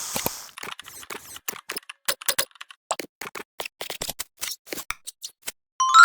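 A rapid, irregular run of sharp clicks, several a second, like keys being struck, ending with a bright ringing chime near the end.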